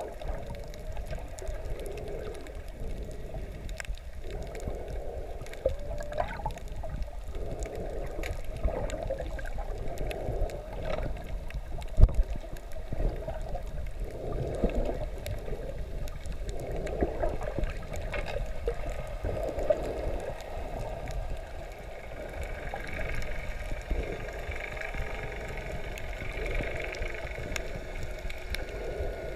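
Muffled underwater sound through a GoPro's waterproof housing: water sloshing and gurgling around the camera, with scattered faint clicks and one sharp knock about twelve seconds in.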